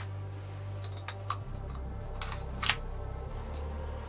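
Several sharp metallic clicks from handling an all-metal Classic Army 1911 A1 gas airsoft pistol, the strongest a little past halfway, over a low steady hum.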